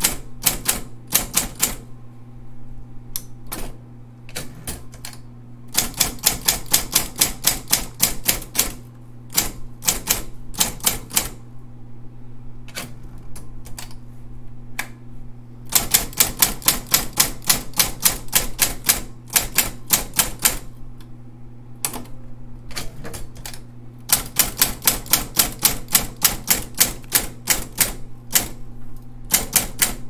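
Royal Award Series 1200 electric typewriter (model SP-8500) being typed on: fast runs of key strikes, several a second, in three long bursts with scattered single keystrokes between, over the steady low hum of its running motor.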